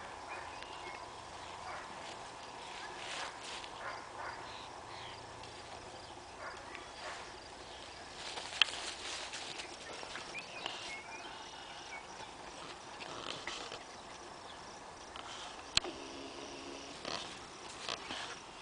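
Faint rustling and scuffling of a young red heeler puppy playing in leafy weeds and scampering on a dirt path, with footsteps on soil. Two sharp clicks stand out, about nine seconds in and near the end.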